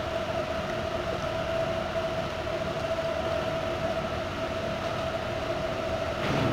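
Steady machine hum with a constant mid-pitched tone and a fainter higher one, and a short bump near the end.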